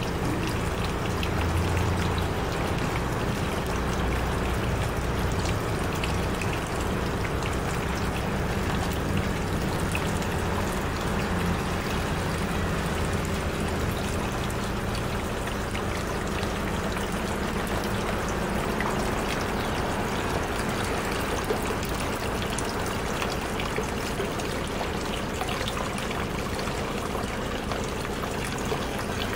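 Small portable ball fountain: water welling from the top of the ribbed sphere and trickling down its sides into the basin, a steady splashing trickle.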